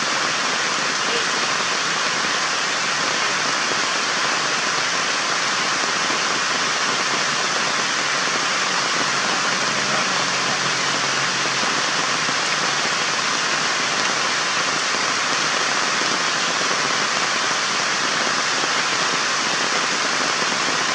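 A steady, even hiss of outdoor background noise with no distinct events, and a faint low hum about halfway through.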